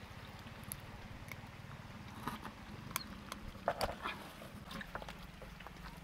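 Rustling of leaves and small crackles and clicks as food is pushed into and stirred in a steaming clay pot over a wood fire, over a low steady rumble, with a few louder rustles around the middle.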